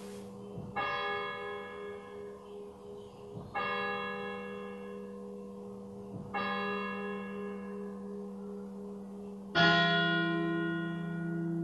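Church tower bell tolling in single strokes about every three seconds, each stroke ringing on and fading under a steady hum. A louder strike near the end brings in a deeper tone.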